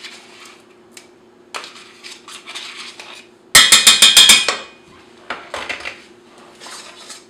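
A spoon clinks rapidly against the side of a stainless-steel saucepan while stirring hot toffee: a quick run of about seven strikes a second, lasting about a second, just past the middle. Lighter knocks and scrapes of the utensils come before it and after it, over a faint steady hum.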